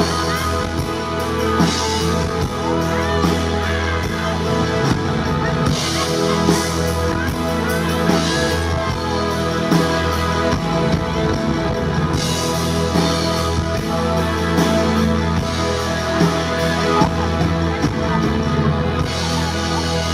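Live rock band playing an instrumental passage: electric guitars over bass, keyboards and drum kit, with held chords and cymbal crashes every few seconds.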